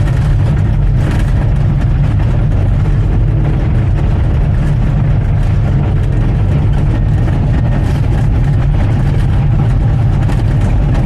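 Heavy diesel engine running steadily with a constant low rumble.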